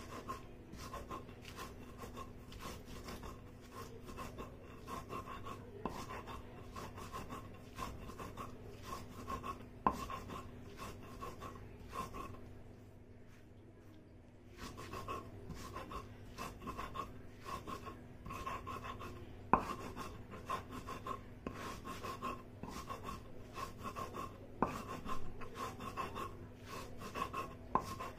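Salt, chillies and spices ground on a flat stone slab with a stone roller (sil-batta): rhythmic gritty stone-on-stone rubbing strokes, with a short pause about halfway and a few sharper knocks of the stone.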